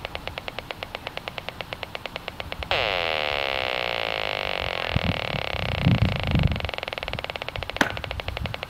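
Audio output of an HF35C RF analyzer turning detected radio-frequency pulses into rapid, even ticking. About three seconds in, the ticking gives way to a louder dense buzz for about five seconds: a strong pulsed RF transmission, with the peak reading jumping to 890 microwatts per square metre. The buzz ends with a sharp click and the ticking resumes.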